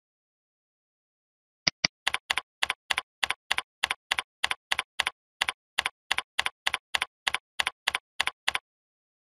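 Two single mouse clicks, then typing on a computer keyboard: a run of evenly spaced key clicks at about three or four a second that stops about a second before the end.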